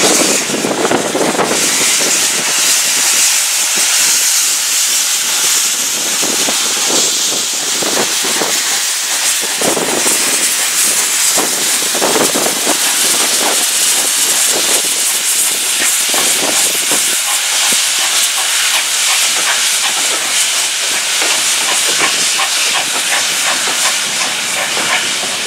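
Steam locomotive letting off steam: a loud, steady hiss throughout.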